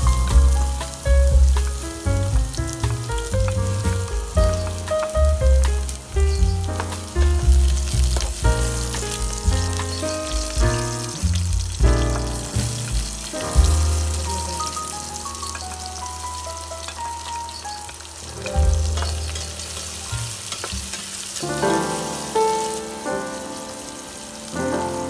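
Minced garlic sizzling in hot oil in a stainless steel pot, with chopped red onion added about halfway through and frying along with it. Background music with a bass line plays over the sizzle.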